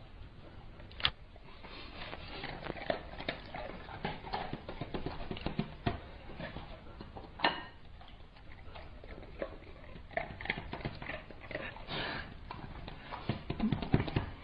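A dog eating: a steady stream of irregular chewing and smacking noises, with a couple of sharper knocks and a busier stretch near the end.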